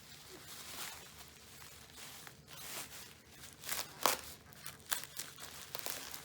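Bubble wrap being pulled and crumpled off an object: irregular crinkling and rustling of plastic, with a few sharp crackles about four and five seconds in.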